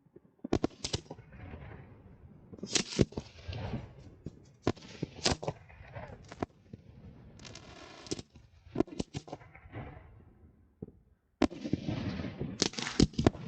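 Fireworks going off: a string of sharp bangs at uneven spacing, several coming close together near the end.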